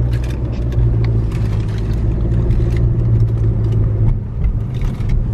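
Car engine and road noise heard from inside the cabin while driving, a steady low hum that drops away about four seconds in, with light rattles over it.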